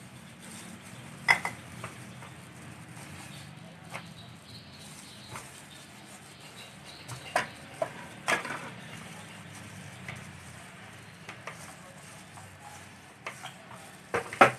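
Scattered light taps and clicks of kitchen work on a board as white bread slices are pressed flat, over a low steady hum.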